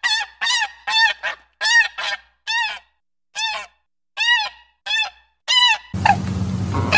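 Black swan giving short, high honking calls, about a dozen in quick succession with two brief pauses, each rising and falling in pitch. Near the end they give way to a steady low hum with hiss.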